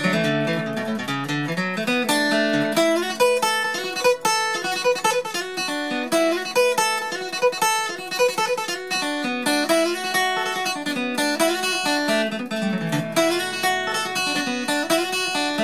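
Solo steel-string acoustic guitar picking a fast fiddle-tune melody in quick single notes, with bass notes moving underneath.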